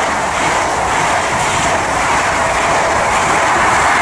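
GWR High Speed Train (Class 43 power cars with Mark 3 coaches) passing through the station at speed, close by: a loud, steady rush of wheels on rail and coach bodies going past.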